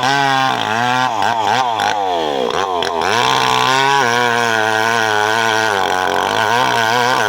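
Two-stroke chainsaw cutting teak. Its engine pitch wavers, sags hard under load about two to three seconds in, then picks back up and runs steadily.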